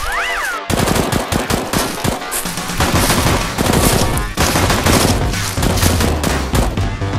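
Rapid automatic-gunfire sound effects, dense strings of shots starting about a second in, laid over background music. A short rising-then-falling tone comes just before the shooting starts.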